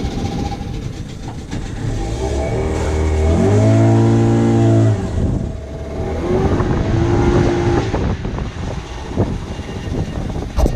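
Kawasaki KLX150 single-cylinder dirt bike engine accelerating, the revs climbing and dropping twice; the first and loudest climb comes about four seconds in.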